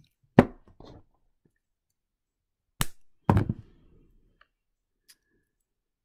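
Jewellery pliers and wire handled at a work table while a wire tail is wrapped around a stem. There is a loud knock about half a second in, a sharp click near three seconds, then a short clatter.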